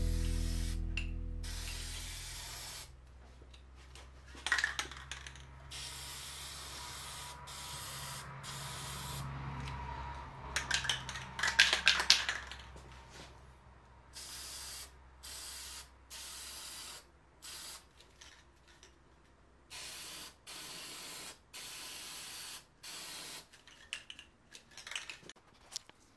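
Rust-Oleum aerosol spray-paint can spraying in repeated short bursts of hiss, each about a second long, with pauses between. A short spell of sharp clicking comes near the middle.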